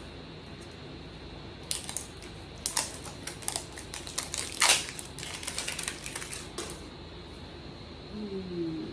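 Fingernails picking and scratching at the plastic wrapping of a Miniverse capsule ball, looking for its tear strip: a scatter of sharp clicks and crinkles, most of them between about two and seven seconds in.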